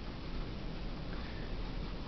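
Low, steady background hiss and hum with no distinct clicks or knocks.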